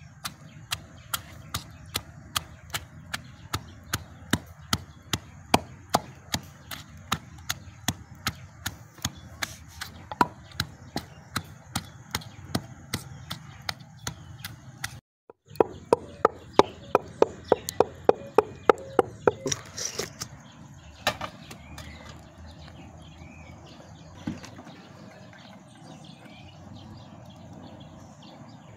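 Long wooden pestle pounding a wet mash of red vegetables in a wooden mortar: a steady knock about twice a second, faster and louder for a few seconds just after the middle. The pounding stops about two-thirds of the way through.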